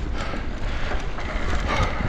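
Wind buffeting the microphone of an electric mountain bike on the move, with tyre noise and a few small rattles from the trail.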